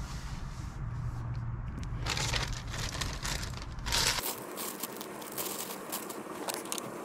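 A clear plastic bag of small parts being handled, crinkling and rustling, with the crinkling loudest from about two to four seconds in. Under it a low steady hum stops suddenly about four seconds in.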